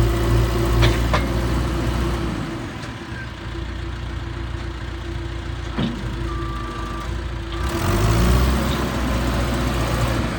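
John Deere 410E backhoe loader's diesel engine running, its sound dropping about two seconds in and picking up again near the end, with a few clicks and a single short beep about six seconds in.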